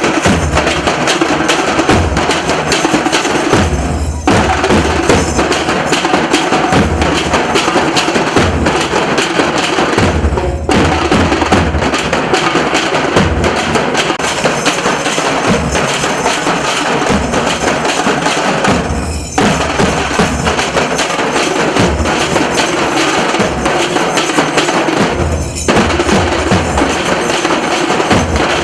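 Nasik dhol drum troupe playing a fast, loud, dense beat of stick and hand strokes, breaking off for a split second four times.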